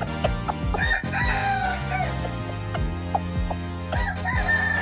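A rooster crows twice, once about a second in and again starting near the end, over background music with a steady beat.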